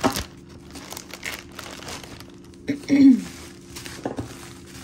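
Packaging being crinkled and torn by hand as a wrapped item is opened, in irregular rustles. The loudest handling noise comes about three seconds in.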